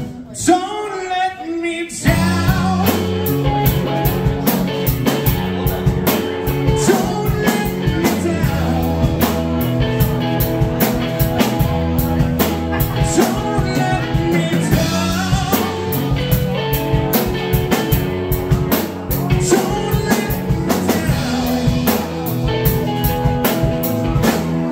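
Live rock trio of electric bass, electric guitar and drum kit playing loudly; the full band comes in about two seconds in.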